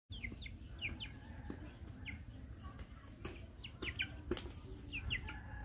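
Birds chirping: many short, high calls, each falling quickly in pitch, with a few sharp clicks about halfway through.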